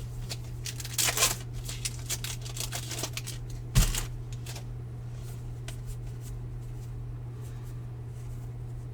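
Baseball trading cards being handled and flipped through, a run of short crisp flicks and rustles in the first three seconds. A single sharp knock comes about four seconds in, with a steady low hum underneath.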